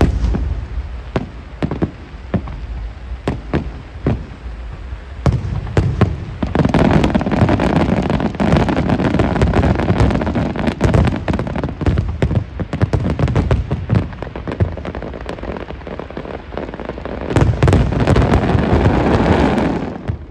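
Aerial fireworks display: a string of separate booms for the first several seconds, then a dense, continuous barrage of shell bursts that eases off and builds loud again near the end before cutting off suddenly.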